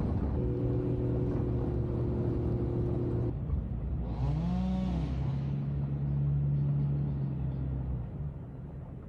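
Jeep Cherokee XJ engine drone while driving, changing abruptly about three seconds in. About four seconds in the engine pitch rises and falls back once, then settles into a steady drone that eases off near the end.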